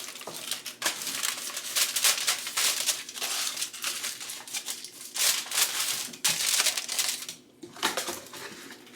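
Aluminium foil crinkling and crumpling as it is handled and pressed down over a pan, in a run of irregular rustles with a brief pause near the end.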